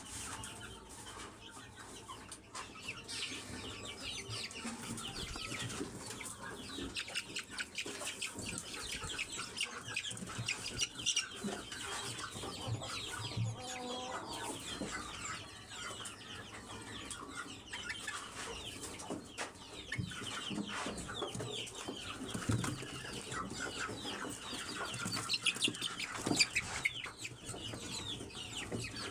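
Aseel chickens clucking and chicks cheeping in many short, high chirps, with wing flapping and rustling throughout.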